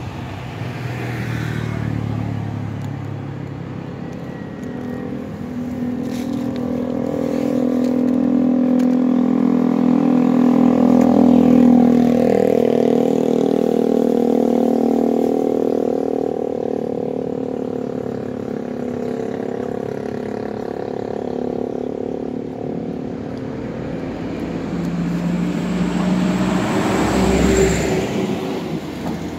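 Motor vehicles passing on the road: an engine drone swells, loudest about twelve seconds in, then fades, and another vehicle passes close near the end.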